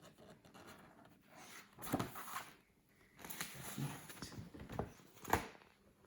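Soft rustling and handling noises, with a sharp knock about two seconds in and another about five seconds in.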